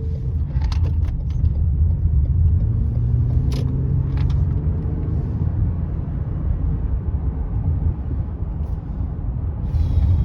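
Car cabin noise while driving: a steady low rumble of engine and road, with a few light clicks.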